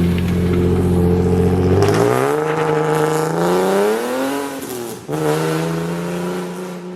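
A car engine running, then revving up with its pitch climbing; it drops out briefly about five seconds in, like a gear change, and then runs on steadily.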